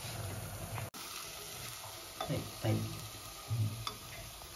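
Grated carrot and jaggery sizzling softly in an open pressure cooker as a silicone spatula stirs through it. The liquid has nearly cooked off.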